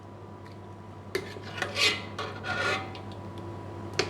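Spoon scraping curry sauce from a pot: a tap a little after a second in, a few short rasping scrapes, and a knock near the end, over a steady low hum.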